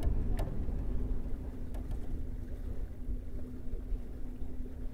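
Steady low rumble with a faint constant hum aboard a sailing ship under way, with two sharp clicks in the first half second.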